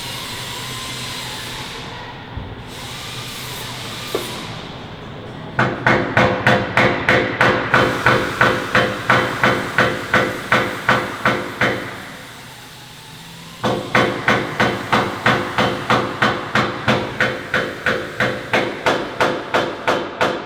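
Hammer striking metal over and over, about four ringing blows a second, in two long runs with a short pause between them. A steady hiss comes before the first run.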